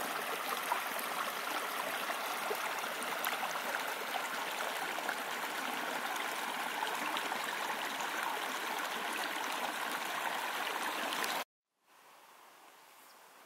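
Mountain stream rushing steadily. It cuts off abruptly near the end, leaving a much fainter steady hiss.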